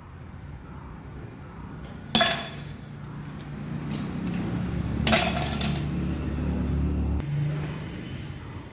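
Metal clutch parts of a Hero Splendor Plus engine clinking as they are handled and fitted by hand, with two sharp metallic clinks about two and five seconds in, over a low steady hum.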